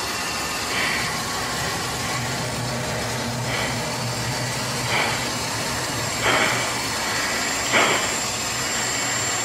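Steady jet cockpit noise, broken every second or two by short, sharp breaths through the pilot's oxygen mask: the pilot's anti-G straining breathing while pulling high G in a hard turn.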